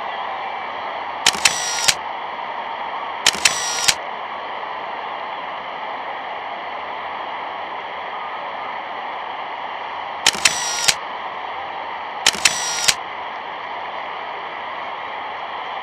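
A steady hiss with four short bursts of sharp clicks, each about half a second long. They come in two pairs about two seconds apart, the second pair about nine seconds after the first.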